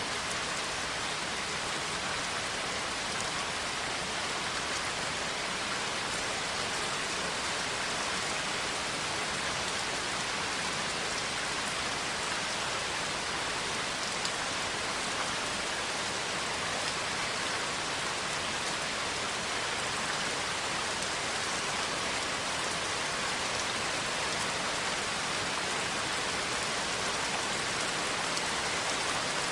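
Steady rain falling, an even patter with no breaks.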